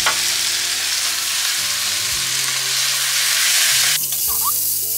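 Sliced beef and onions sizzling in olive oil in a frying pan as they are stirred with a wooden spatula. About four seconds in the sizzle thins to a higher hiss.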